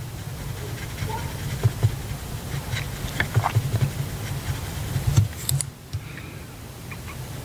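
Watercolour brush swirling and tapping in a plastic mixing palette, giving scattered small clicks and scratches, over a steady low rumble.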